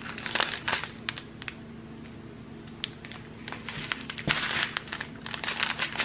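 Clear plastic bags of diamond-painting drills crinkling as they are handled. The crinkling comes in irregular clusters, busiest about four seconds in, over a faint steady hum.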